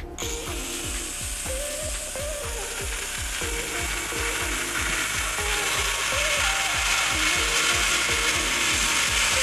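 A steady rasping hiss from a tool working PVC pipe, starting just after the start. Background music with a steady beat plays underneath.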